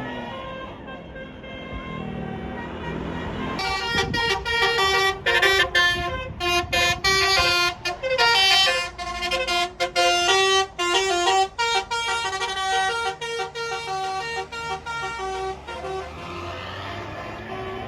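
Bus "telolet" horn, a multi-tone Basuri horn, playing a quick tune of short notes that starts about three and a half seconds in and runs for about twelve seconds, over the bus's engine and road noise.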